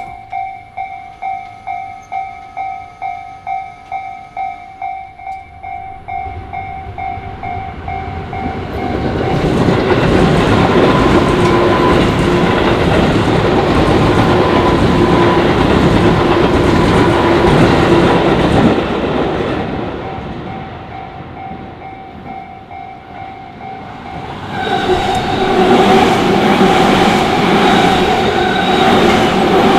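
Japanese level-crossing warning bell ringing in quick, regular strikes, about two to three a second. A few seconds in, a Tobu Tojo Line electric train passes with loud wheel clatter and rumble that drowns the bell and fades away. A second train passes from about five seconds before the end.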